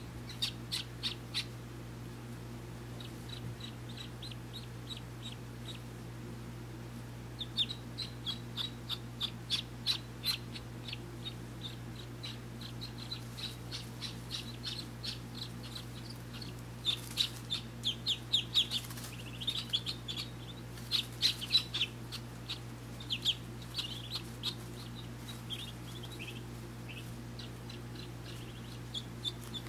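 Muscovy ducklings peeping in quick runs of short, high calls while huddled under the brooding hen, busiest in the second half. A steady low hum runs underneath.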